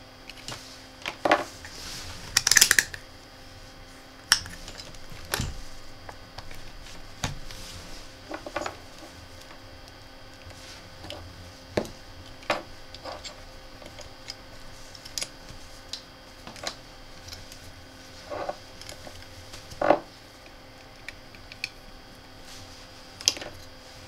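Scattered clicks, taps and clatter of multimeter test leads and wires being handled on a bench, probe plugs pushed into the meter's jacks and onto a power board's terminal posts, with a louder cluster of clatter about two and a half seconds in. A steady faint hum runs underneath.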